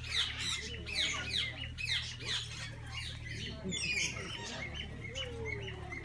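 Parrots in an aviary chattering: many short, high, falling chirps and squawks overlapping all the while, over a steady low rumble.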